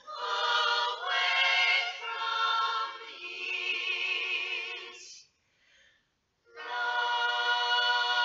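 A cappella singing: a run of held, wavering sung notes, a break about five seconds in, then one long held note.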